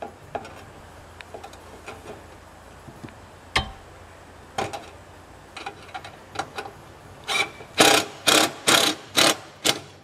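Hand-tool work on a gutter at the eaves: scattered light clicks and taps, then near the end a run of about six loud, short, sharp knocks, about two a second.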